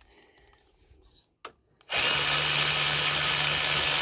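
Cordless electric ratchet starting up about halfway in and running steadily, spinning out a hub-bearing mounting bolt that has already been broken loose.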